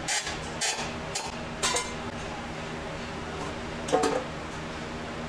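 Hand screwdriver working a screw into the bottom of a stainless-steel bowl liner fitted in a wooden hotpot: a few sharp metallic clicks about every half second. About four seconds in, a single louder metallic clank with brief ringing as a steel bowl is handled.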